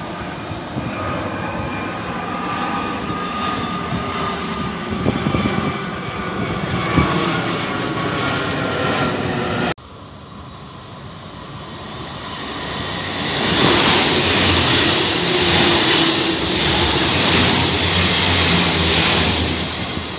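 Rail noise of an ICE high-speed train moving away along the track, a steady rush with faint whining tones. After a sudden cut, a blue regional electric multiple unit rolls into the platform, its wheel-and-motor noise swelling louder from about two seconds later and staying loud.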